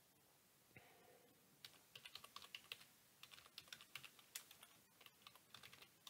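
Faint typing on a computer keyboard: a quick run of key clicks starting about a second and a half in, with a brief pause near the middle, as a password is entered.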